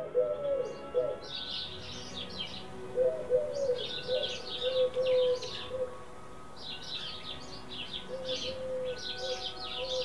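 Eurasian collared dove cooing in low, repeated notes, with small birds chirping in quick high bursts over it.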